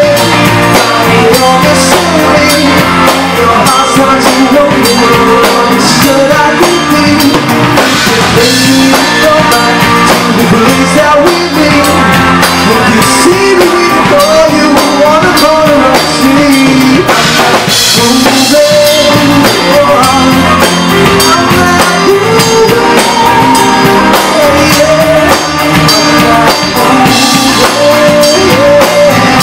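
Live rock band playing a cover song: drum kit, electric guitars and a singer's voice, loud and continuous.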